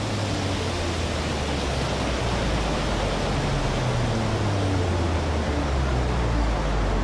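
Eruption of Mount Marapi volcano: a steady, rushing roar with a low rumble beneath it as the ash column billows up.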